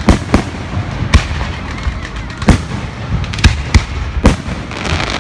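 Fireworks going off: about seven sharp bangs at uneven spacing over a low rumble, with a burst of crackling near the end.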